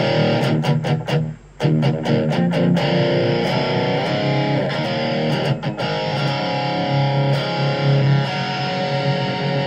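Electric guitar played through a Blackstar ID:Core Stereo 10 V2 practice amp on its OD2 channel, the heaviest distortion setting. Short, choppy strummed chords for the first few seconds, then chords left to ring out.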